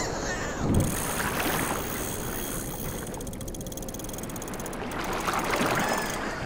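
Water sound effects, splashing and rushing, in the intro of a hip-hop track, with a loud whoosh about a second in.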